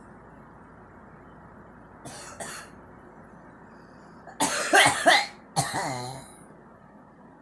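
A girl coughing: two light coughs about two seconds in, then a louder fit of several quick coughs a couple of seconds later, ending in a drawn-out cough that falls in pitch.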